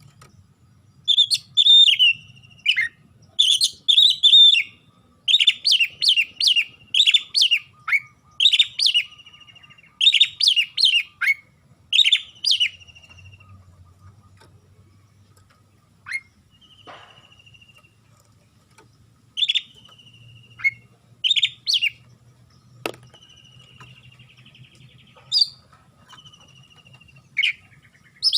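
Oriental magpie-robin (kacer) singing: quick runs of loud, sharp chirping phrases for the first dozen seconds, then sparser single notes and short whistles.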